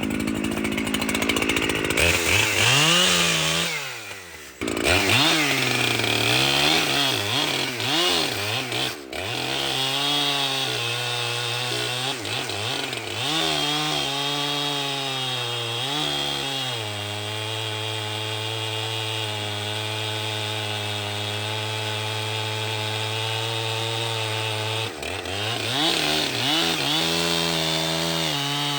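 Two-stroke chainsaw running at high revs while cutting into a log: the engine pitch dips and recovers repeatedly under load, then holds steady for several seconds during a long cut before wavering again near the end.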